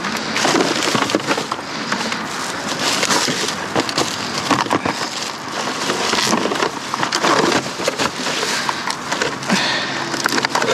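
Rummaging through trash in a dumpster: a continuous, irregular jumble of rustling, crunching and knocking as items are dug through and shifted.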